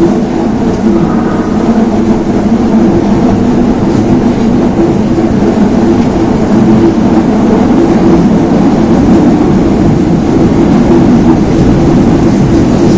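Osaka Municipal Subway 22 series train running underground, heard from the front of the train: a loud, steady rumble of wheels on rail with a low, even hum from the running gear.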